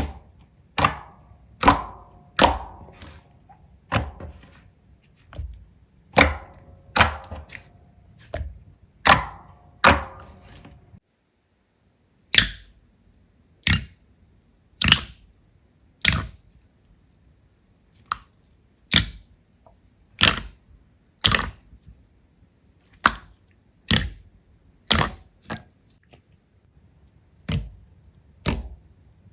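Slime being pressed and worked by hand, giving sharp popping clicks about once a second as trapped air bursts. After a short break about a third of the way in, the pops carry on, cleaner and with less ringing after each.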